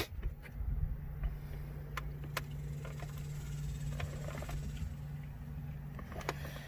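Scattered light clicks and taps of a short shifter and its gasket being worked onto a transmission's top plate while the bolt holes are lined up, starting with one sharp click, over a steady low hum.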